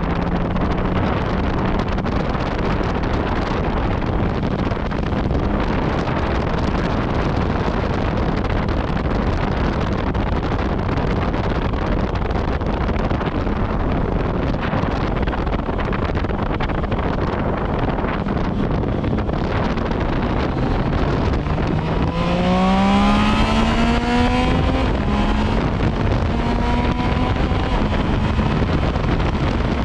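Yamaha MT-09 Tracer's three-cylinder engine, breathing through an Akrapovič exhaust, running at a steady cruise under heavy wind rush on the microphone. About 22 seconds in, the engine revs up with its pitch rising for a couple of seconds, then holds a steady, higher note.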